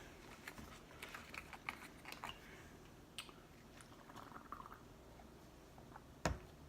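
A person chewing a taco close to the microphone: soft, scattered mouth clicks and smacks, with one sharper knock about six seconds in.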